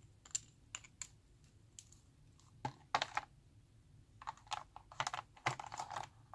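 Long fingernails clicking and tapping against a plastic blister tray and plastic gel tubes while a tube is picked out: scattered sharp clicks, a few at first and then a cluster near the middle, growing denser in the last two seconds.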